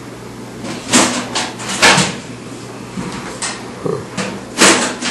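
Several short, sharp knocks and clatters, the loudest about a second in, about two seconds in and again near the end, with fainter ones between.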